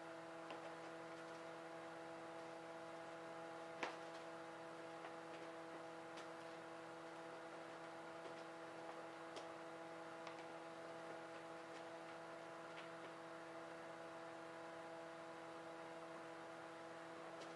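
Quiet room tone: a steady electrical hum under faint, scattered handling clicks as string is tied to a hanging lynx pelt, with one sharper click about four seconds in.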